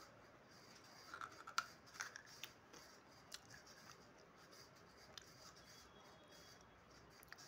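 Crisp crunches of dry clay being bitten and chewed: a quick cluster of sharp snaps about a second to two and a half seconds in, then a few single cracks.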